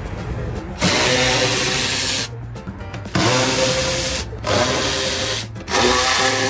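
Cordless impact wrench hammering in four bursts of a second or so each, with short pauses between them, undoing bolts under the car.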